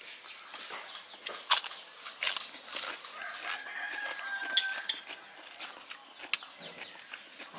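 A rooster crowing once in the background, one drawn-out call of about a second and a half near the middle, over scattered clicks and clinks of spoons and dishes at a meal.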